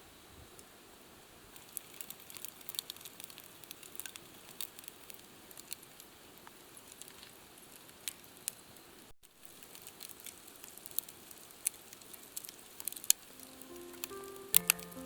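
Wood campfire crackling: scattered sharp pops over a low hiss, with a very brief break about nine seconds in. Music comes in near the end.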